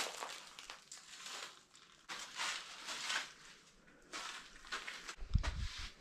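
Footsteps crunching irregularly on the loose gravel and rock of a cave floor, with a short low thump near the end.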